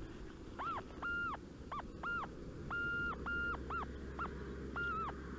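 Metal detector sounding on a buried target: a rapid, irregular string of short beeps, all at the same mid-high pitch and of varying length, as the coil is passed back and forth over a target in or around the dig hole.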